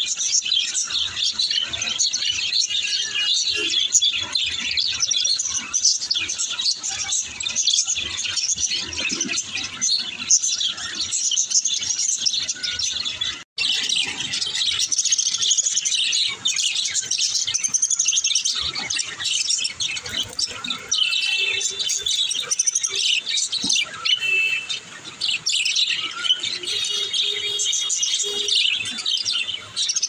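A group of budgerigars chattering, a continuous busy mix of high chirps and warbles, breaking off for an instant about halfway through.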